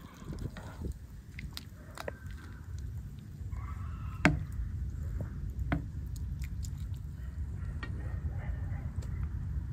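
A pan of water at a rolling boil with a steady low rumble, while a metal slotted spoon skims foam off beef brains cooking in it, clinking and scraping against the pan now and then. The loudest clink comes about four seconds in, and another about a second and a half later.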